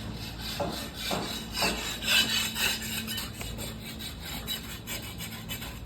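Repeated rough scraping strokes, a gritty rubbing sound that keeps coming in quick succession.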